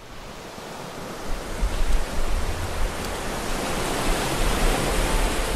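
Ocean surf breaking and washing up onto a sandy beach, a steady hiss that fades in from silence and grows louder, with a low uneven rumble underneath.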